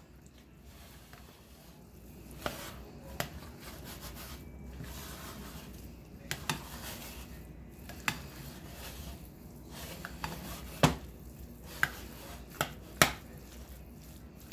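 Metal spoon stirring and folding moist cornbread dressing in a ceramic bowl: a steady soft rubbing and mashing, with sharp clicks now and then as the spoon knocks against the bowl.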